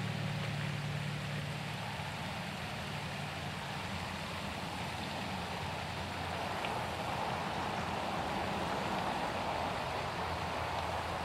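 Steady outdoor background noise, an even low rushing hum, while the last sustained notes of music die away in the first second or so.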